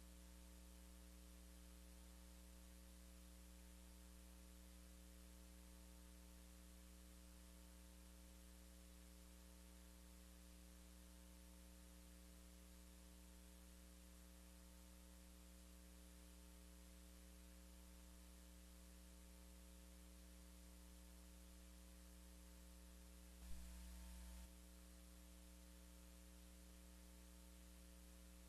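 Near silence: a faint, steady electrical hum, with one brief click late on.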